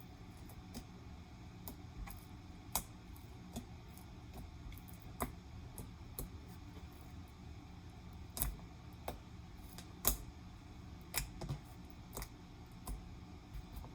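Hands squishing and stretching freshly made glue slime, giving irregular sharp clicks and pops.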